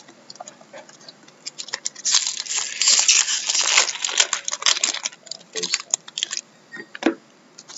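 Trading cards and their packaging being handled, rustling and crinkling, with a denser crinkle from about two to four seconds in and scattered clicks, one sharp click near the end.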